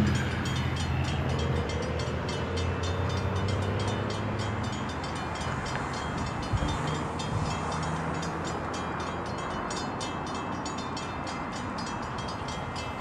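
Metrolink commuter train passing close by: its diesel locomotive's low engine note fades in the first seconds while the cars roll past with steady wheel-on-rail noise and fast clicking. The sound slowly dies away, with a single thump about halfway through.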